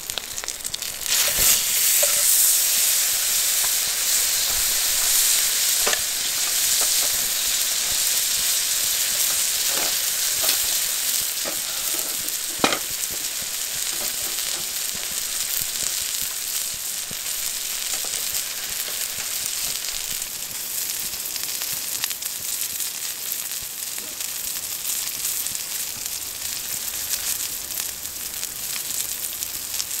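Thick-cut wagyu steak sizzling on a hot iron plate over a campfire. The sizzle jumps up loudly about a second in, as the steak is turned onto its unseared side, then runs on steadily and eases slightly, with a few sharp pops of spitting fat.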